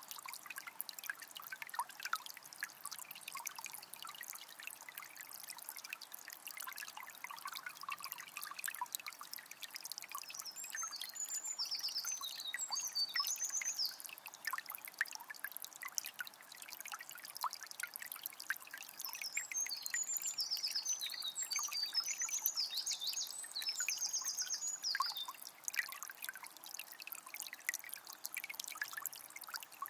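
Shallow forest river trickling and babbling over stones, a steady patter of small splashes. A bird sings two bursts of quick, high notes over it, one about ten seconds in and a longer one past the middle.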